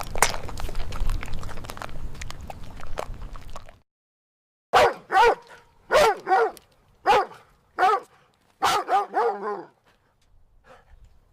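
A crunching, chewing noise cuts off, and after a short gap a dog barks about nine times in quick succession with short, high-pitched yips.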